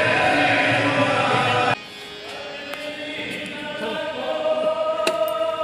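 Congregation singing devotional chant in chorus at a satsang, cut off abruptly a little under two seconds in. It is followed by quieter music with long held notes that slowly grows louder.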